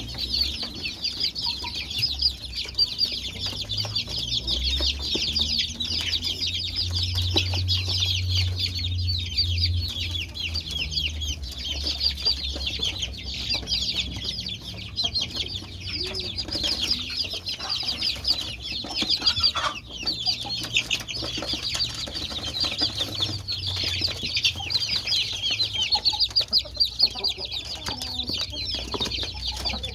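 A flock of about forty 35-day-old kampung chicks peeping continuously, many short high calls overlapping into a constant chorus.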